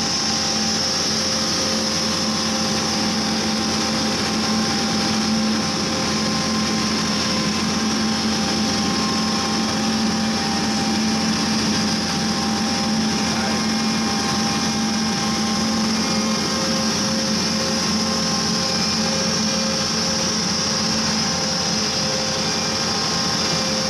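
Horizontal directional drilling rig (an 80x100-class drill) running steadily: engine and hydraulic drive droning with a constant hum and a steady high hiss above it, no breaks or knocks.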